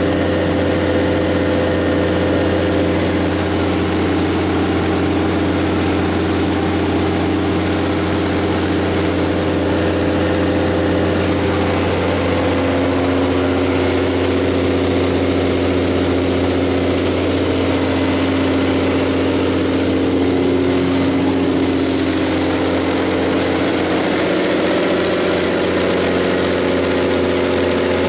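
Generac MD600 600 kW diesel generator set running steadily, its Doosan P222FE V12 diesel engine holding an even, unchanging drone.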